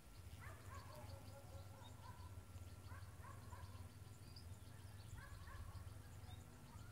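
Faint outdoor background with a bird calling in the distance, four times about two seconds apart, each call sliding down and then held briefly, over a low steady hum.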